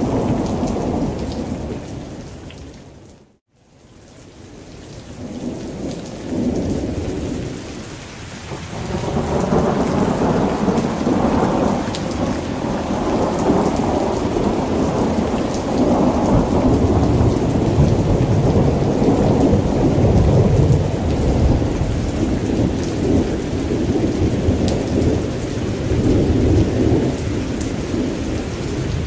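Steady rain with rolling thunder rumbling underneath in long swells. The sound fades out to near silence about three seconds in, then builds back, the thunder growing heavier from about nine seconds in.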